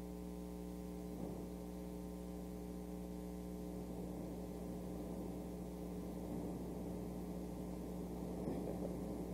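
Steady electrical mains hum on the recording, a low buzz with a stack of even overtones and no change in level.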